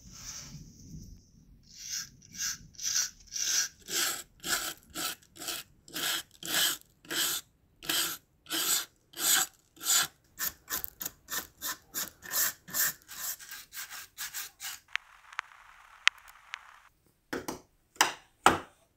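Small brass wire brush scrubbing rust off a metal toy pistol in back-and-forth strokes, about two a second at first, quickening later. Near the end the scrubbing turns into a steadier scraping for a couple of seconds, then a few last strokes.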